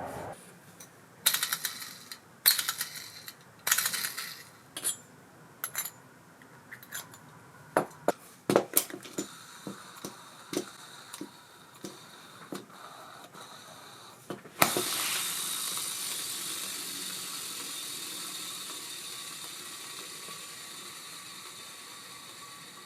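A series of small metal clicks and clacks from the reel's parts being handled. Then, about fifteen seconds in, the spool of an Abu Garcia Ambassadeur 5500C baitcasting reel is set spinning: a steady whir that fades slowly as the spool winds down. It is a plain bearing sound with no knocking, now that a new genuine ABU bearing cog wheel is fitted in place of the faulty one.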